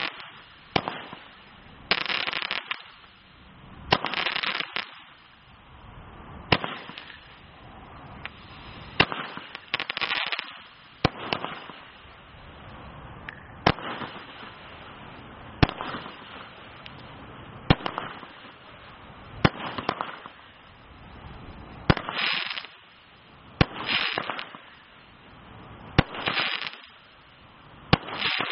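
Brightstar 'Bombay Nights' firework firing a steady series of shots, about one every two seconds. Each shot is a sharp bang followed by up to a second of crackling hiss as the burst breaks.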